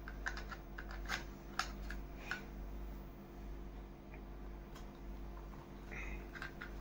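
Light plastic clicks and taps as a metal axle and wheels are pushed into a plastic toy truck's chassis, scattered and irregular, with a few sharper clicks in the first couple of seconds. A steady low hum runs underneath.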